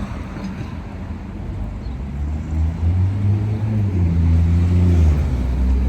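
Car engine and road noise, a low steady hum whose engine note swells and shifts in pitch from about two seconds in.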